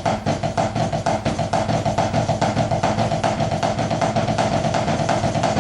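Snare drum struck with sticks in a fast, even stream of Swiss Army Triplets, the flam-tap rudiment, played left-hand lead with accented notes.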